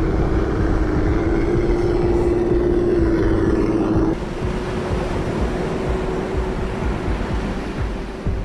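FTX Kanyon RC crawler's electric motor whining at a steady pitch as the truck drives through sand, over a low rumbling background. About four seconds in the level drops abruptly and the whine carries on more faintly.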